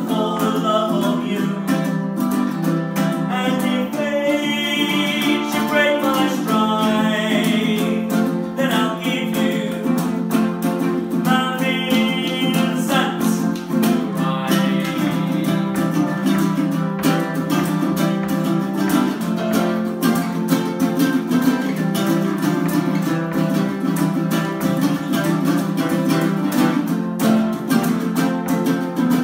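Two acoustic ukuleles, one of them a baritone ukulele, played together in a fast, steady rhythm of strummed and picked notes.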